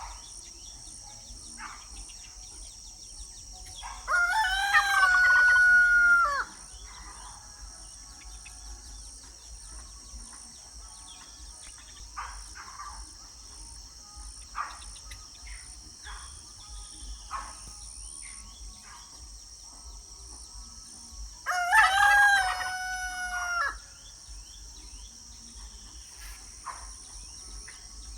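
Rooster crowing twice, each crow about two seconds long, some eighteen seconds apart. Between the crows come scattered short bird chirps and hen clucks over a steady high insect buzz.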